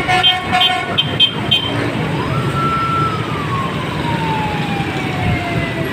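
Jammed city road traffic: a steady rumble of engines, with several horn honks in the first second and a half. About two seconds in, a siren rises, holds briefly and then slowly winds down.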